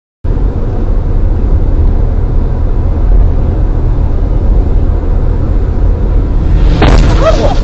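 Steady low road and engine rumble inside a car cabin at highway speed, picked up by a dashcam. It starts after a brief silence, and a person's voice comes in near the end.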